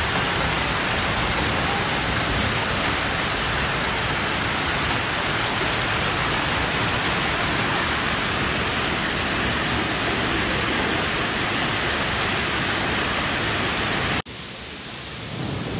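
Heavy hailstorm: hail and rain pelting down in a steady, dense hiss. About 14 seconds in it cuts abruptly to another recording of the storm, quieter at first, then the downpour noise swells back up near the end.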